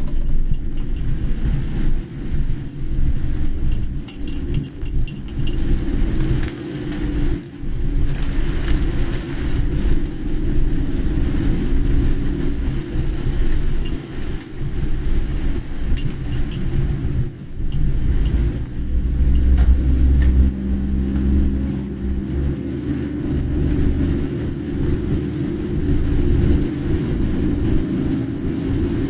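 A car driving: a continuous low rumble of engine and road noise, swelling for a few seconds about two-thirds of the way through.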